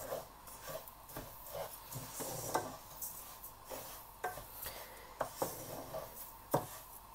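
Wooden spatula stirring flaxseeds as they dry-roast in a nonstick pan: a soft rustling scrape of the seeds being pushed around, with a few sharp clicks of the spatula in the second half.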